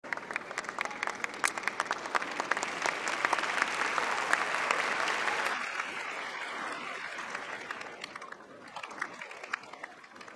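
Audience applauding in a large concert hall, the clapping dying away after about six seconds to a few scattered claps.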